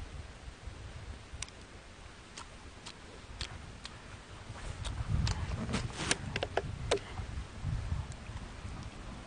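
Scattered light clicks and taps of eating: chopsticks against metal pots and dishes, then a plastic water bottle being handled. The clicks come sparsely at first and bunch together about five seconds in, over a low rumble.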